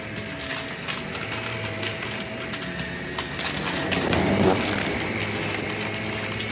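Shark cordless stick vacuum running on shag carpet, sucking up seashells that rattle and crunch through the floor head in an irregular clatter over a steady motor hum. The clatter grows loudest about four seconds in, as the head runs into the pile of shells.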